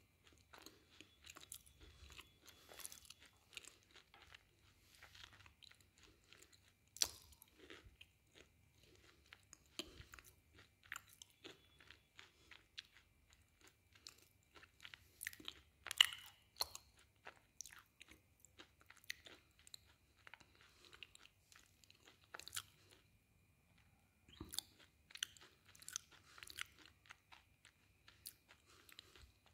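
Close-up biting and chewing of a hard, pale chalk-like chunk: irregular crisp crunches between quieter chewing, with the sharpest bite about halfway through.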